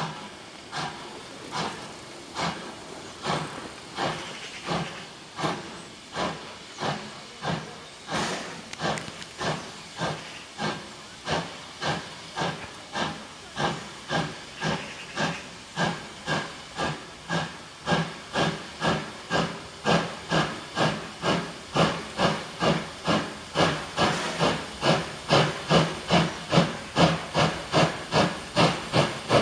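Steam locomotive working hard as it pulls away and approaches: evenly spaced exhaust chuffs over a steady hiss of steam, growing louder and quickening from about one and a half beats a second to just over two a second.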